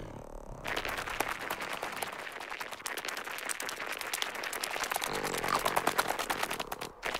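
Cartoon sound effect of tiny insect feet pattering fast over crusted snow: a dense run of small crunching ticks that starts under a second in.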